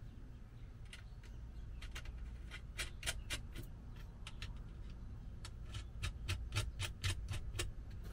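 Runs of quick small metallic clicks, about five a second, with pauses between: a hand tool turning the terminal nuts on an RV's old lead-acid battery.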